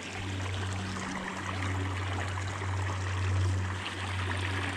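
Small mountain stream running and trickling over a shallow bed, a steady rush of water with a low rumble underneath.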